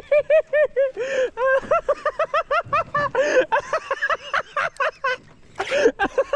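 A man laughing hard in rapid high-pitched bursts of about five a second, broken by gasping breaths about a second in, about three seconds in and near the end.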